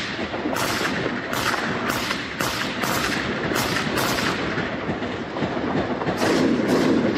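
Small-arms gunfire: a run of single shots about two a second, then a pause and two more shots near the end, over a continuous noisy rush.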